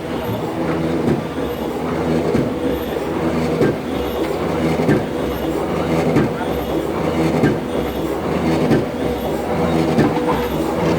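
A press machine running with a steady mechanical hum of several low tones, with light irregular knocks and clicks over it.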